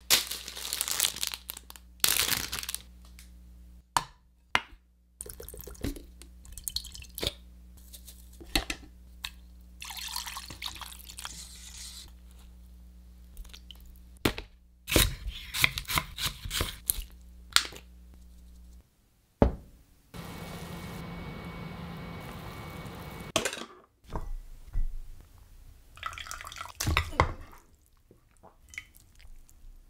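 A run of close-miked cooking sounds: liquids poured and dripping, a stainless saucepan handled with short knocks and clinks, and a steady hiss for a few seconds about two-thirds of the way through. Near the end comes the clicking and scraping of chopsticks in the saucepan of simmered tofu and sauce.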